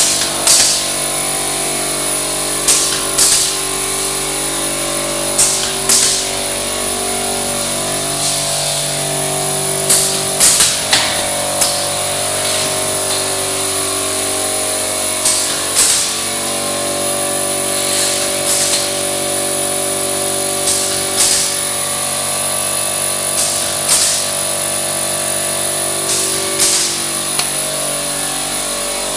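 Mobiprof GK roll-forming machine running, with sharp metallic clacks roughly every two to three seconds, often in quick pairs. Background music with sustained chords plays underneath.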